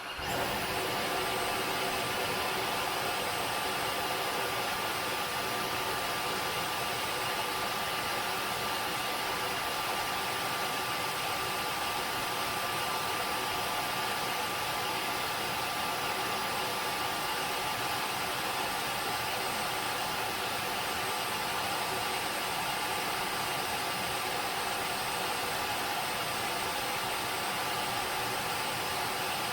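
Tineco Floor ONE S7 PRO wet-dry floor cleaner blowing air over its brush roller in the dock to dry it, the final stage of its self-cleaning cycle. It is a steady whoosh with a faint high whine that comes on right at the start and holds even.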